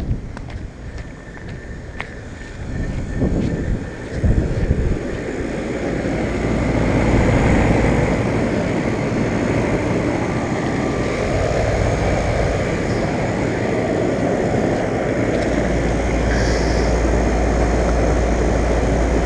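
Outdoor condensing unit of a central air conditioner, a 5-ton Concord, running: its fan makes a steady, loud whoosh. The whoosh grows louder over the first few seconds, and a deeper steady hum joins about 15 seconds in.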